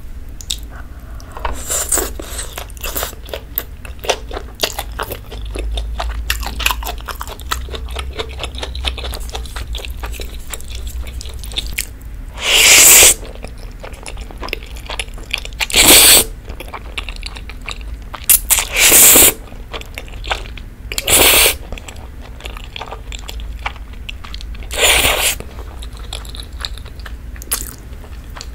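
Close-miked chewing of beef steak and grilled asparagus, with crunching and wet mouth clicks. In the second half, about five loud slurps of spaghetti in creamy rose sauce stand out above the chewing.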